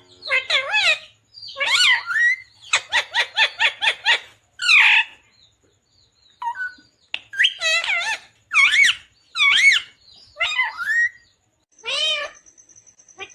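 Green Indian ringneck parakeet vocalizing in a series of warbling, pitch-bending calls, with a quick run of short repeated notes about three seconds in, a brief pause in the middle, then more calls.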